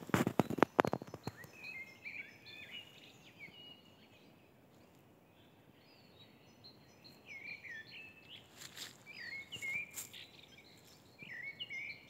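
Footsteps crunching on dry leaf litter in the first second, then songbirds singing in the trees: short phrases of quick gliding notes that pause for a couple of seconds midway and come back, ending with a few more light crunches.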